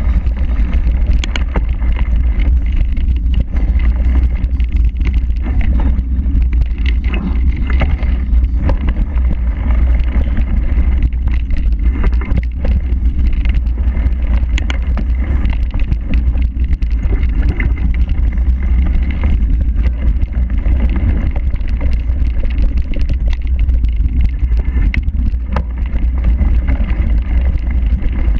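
Cyclocross bike ridden fast over a muddy grass track, heard from a camera on the rider: a steady, heavy rumble of wind on the microphone with tyre noise, and frequent knocks and rattles as the bike hits bumps.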